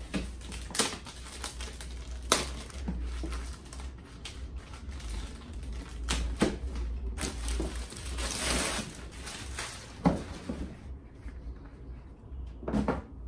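Clear plastic wrap crinkling and tearing as it is pulled off a cardboard box, with scattered taps and knocks of handling. There is a longer rustle about eight seconds in and a sharper knock about ten seconds in.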